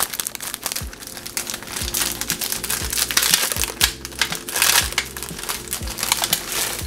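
Plastic candy-kit packet crinkling as it is handled and pulled open, loudest in the middle, over background music with a soft beat about once a second.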